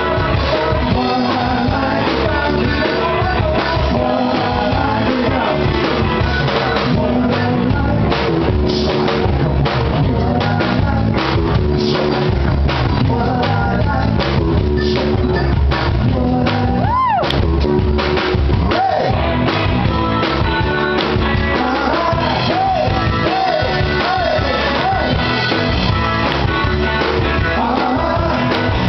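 Live rock band playing: a male voice singing over electric guitars and a drum kit.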